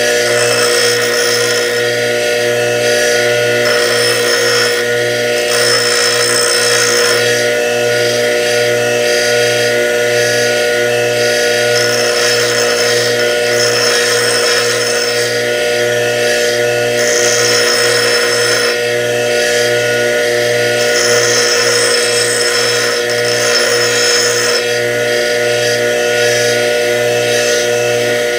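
Bench grinder running with a steady motor hum, a steel fuel injector tip pressed against the grinding wheel in repeated passes. The metal-on-wheel grinding hiss comes and goes every few seconds as the weld holding the injector's pintle cap is ground away.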